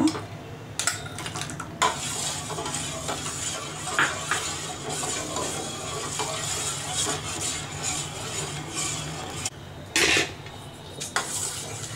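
A metal spoon stirs thickening mango custard in a stainless steel saucepan, scraping and clinking against the pan, with a few sharper clinks about four seconds in and again near the end. The stirring is kept up so the custard powder does not form lumps as it cooks.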